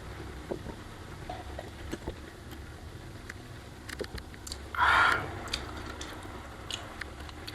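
Close-miked eating sounds: small clicks and chewing noises over a steady low hum, with one short, louder burst of noise about five seconds in.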